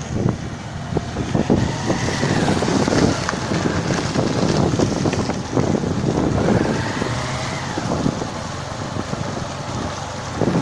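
Motorcycle riding past close by, its engine running, with wind buffeting the microphone.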